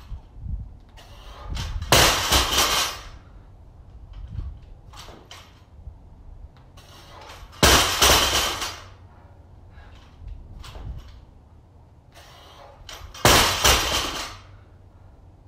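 A 135 lb loaded barbell dropped onto rubber floor mats three times, about five and a half seconds apart, each a loud crash with a short metallic rattle of the plates and bar. Smaller knocks in between.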